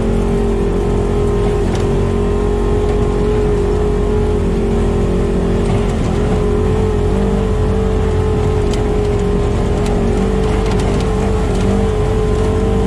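Polaris RZR side-by-side's engine running at a steady pace under way on a dirt trail, heard from inside the open cab, with a brief dip in engine speed about six seconds in.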